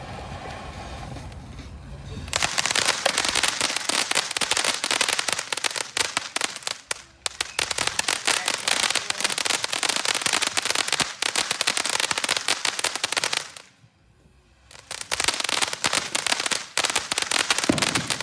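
TNT Mount Magma firework fountain crackling densely with a rapid stream of small pops, starting about two seconds in. The crackle stops for about a second near three-quarters of the way through, then picks up again.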